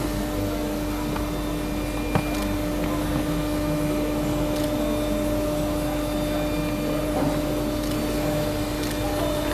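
Steady machine hum with two constant pitches, like an extractor or ventilation unit running, with a few light clicks and knocks as small wooden boxes are handled.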